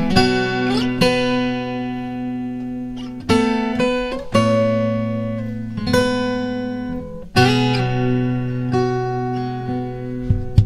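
Baton Rouge AR31C/ACE auditorium acoustic guitar with a solid cedar top played fingerstyle: a picked melody over low notes that ring on, with fresh plucked accents every second or few and a couple of short slides between notes.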